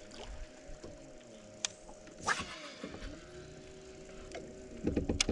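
Electric trolling motor on a bass boat whining steadily, its pitch gliding up and down as its speed changes. A sharp click and a short swish come in the first half, and a cluster of knocks, the loudest sounds, comes near the end.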